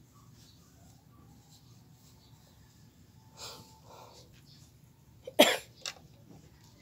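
A person sneezing once, loud and sharp, about five seconds in, after a couple of short breathy intakes.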